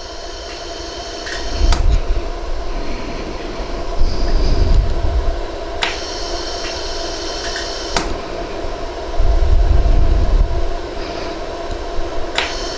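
LaserStar iWeld 100-joule jewelry laser welder at work welding white gold wire onto a ring's prongs: a steady machine hum with five sharp clicks spread through, a high whine between two of them, and stretches of low rumble.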